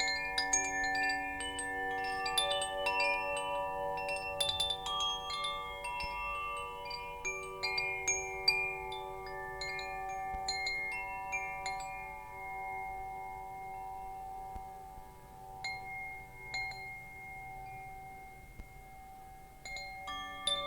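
Wind chimes ringing: metal tubes struck at irregular moments, each note ringing on and overlapping the others. The strikes come thickly for the first half, thin out to a few sparse notes, then pick up again near the end.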